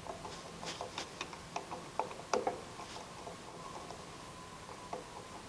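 Light, irregular metal clicks and taps of hand tools working loose a Romex-style cable connector on a steel junction box, over a faint steady hum.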